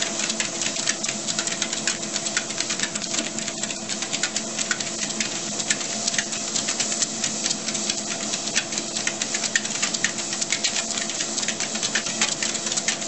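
ProForm treadmill running with two corgis walking on it: a steady motor whine under a fast, irregular patter of clicks from their paws on the belt.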